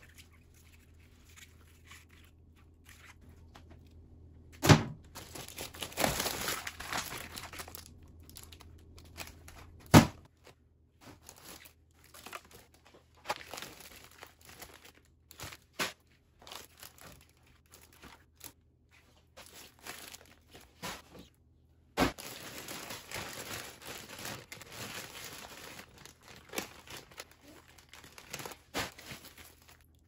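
Plastic food packaging and bags crinkling and rustling as they are handled and sorted, with two sharp thuds, the loudest sounds, about five and ten seconds in.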